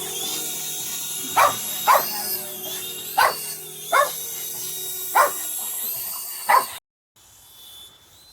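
A dog barking about seven times at irregular intervals, over a steady high-pitched whine. Near the end the sound cuts off abruptly, and only a fainter, wavering whine is left.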